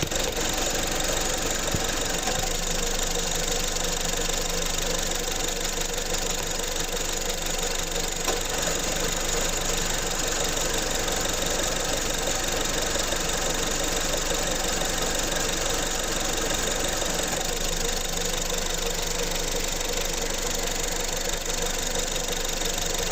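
2015 Honda Civic engine running steadily, with the engine noise that its owner is showing as a problem.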